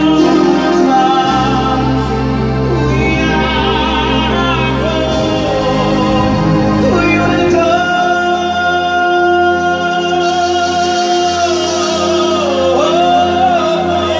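Live amplified music: a male singer sings a slow opening with long held, wavering notes over sustained electronic keyboard chords, played through PA loudspeakers.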